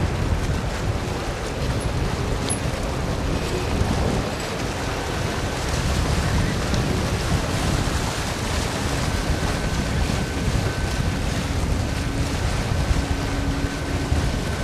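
Wind buffeting the microphone over a steady low rumble, with a faint high whine that comes and goes.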